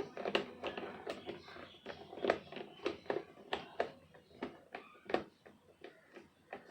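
Irregular clicks and knocks, a few a second, of hands and tools working on a Mahindra Xylo's plastic instrument cluster as it is taken apart.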